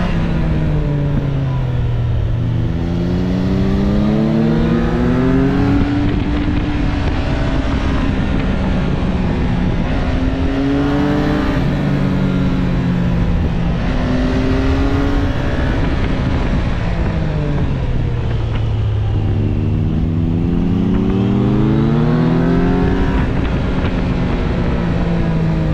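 Motorcycle engine heard from the riding bike, climbing in pitch as it accelerates and dropping back as the throttle is rolled off, about four times, over steady wind rush.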